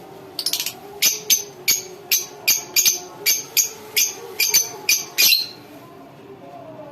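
Lovebird calling: a quick run of about fifteen sharp, high-pitched chirps over some five seconds, which then stops.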